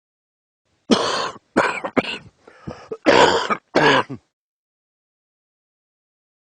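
A person coughing and clearing their throat: about five harsh bursts in quick succession over some three seconds.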